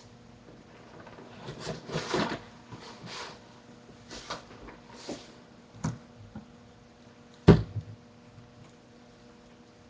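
Clattering and knocking of objects being handled and set down at a desk, with a loudest single sharp knock about seven and a half seconds in, over a faint steady electrical hum.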